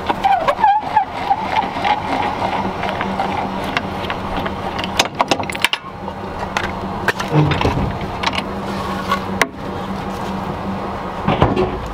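Metal clicks, knocks and scrapes of trailer-hitch hardware being handled at a pickup's receiver hitch, with a brief squeak just after the start, over a steady low hum.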